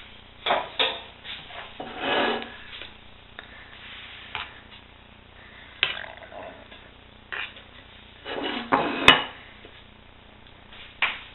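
Metal serving spoon scraping and clinking against a pan and plate as creamy chicken stew is scooped up and spooned out, in a string of short scrapes and knocks with a sharp clink about nine seconds in.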